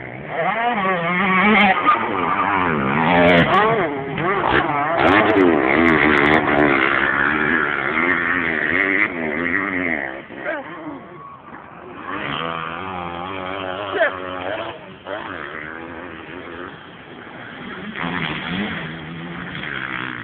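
Several motocross bikes' engines revving hard as they race past, their pitch climbing and falling with throttle and gear changes. The noise is loudest in the first half, eases about ten seconds in, then builds again as more bikes come through.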